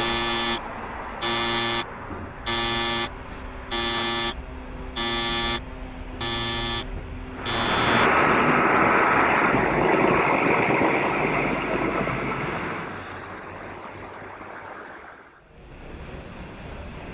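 A fire engine's two-tone horn sounds in seven short, even blasts a little over a second apart. Then comes a loud rushing noise that lasts about five seconds and fades away.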